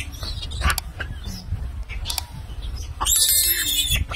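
Macaques squealing while crowding a man for food. About three seconds in, a loud, high-pitched shrieking call starts.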